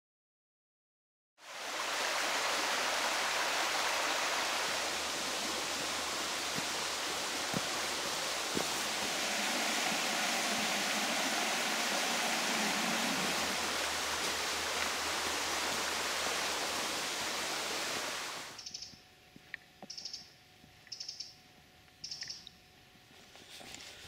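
Shallow rocky river rushing over stones: a steady, even rush of water that starts about a second in and cuts off abruptly about three-quarters of the way through. It is followed by a much quieter stretch with four short, soft taps about a second apart.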